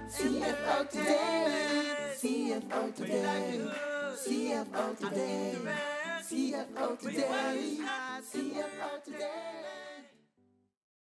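Group of voices singing a jingle a cappella, several parts together in harmony; the singing ends about ten seconds in.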